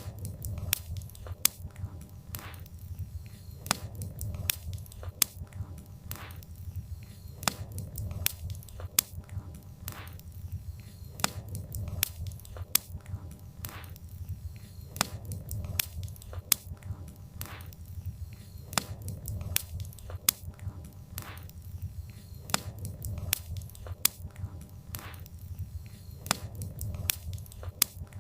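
Campfire of burning firewood crackling, with irregular sharp pops several times a second over a steady low rumble.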